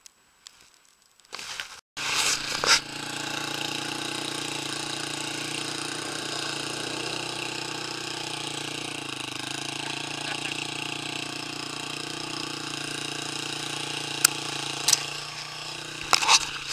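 Quad bike engine idling steadily at an even pitch, starting about two seconds in after near quiet, with a few clicks near the end.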